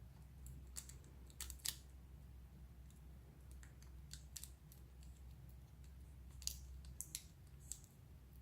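Scattered light clicks and taps, about eight, from hands handling a laptop's plastic parts and display panel, over a faint low hum.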